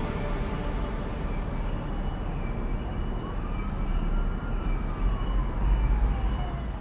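Steady rushing roar of a waterfall, with low rumble on the microphone. A faint tone rises slowly and falls away over a few seconds in the middle.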